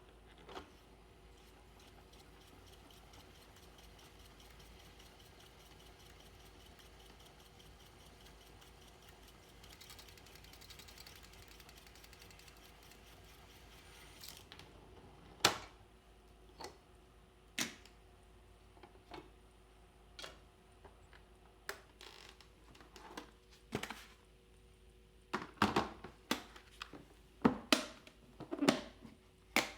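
Sony TC-102 reel-to-reel tape recorder running after the song has ended: a faint steady hiss and hum with a fine fast ticking. About halfway, sharp mechanical clicks and clunks begin at irregular intervals and come thicker near the end.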